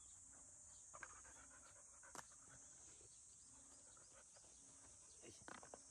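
Faint panting of a yellow Labrador Retriever puppy breathing hard in summer heat, over a steady high insect drone.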